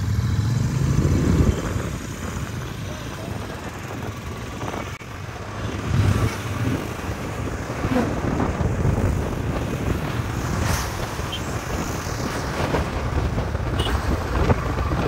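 Vehicle noise: a continuous low rumble with wind buffeting the microphone.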